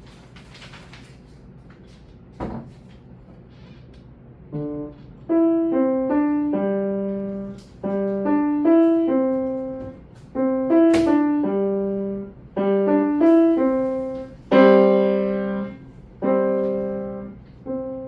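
Piano playing a simple Korean children's song in short phrases, a melody over a few lower notes, with brief pauses between phrases. The first few seconds hold only faint room noise and one short knock before the playing starts.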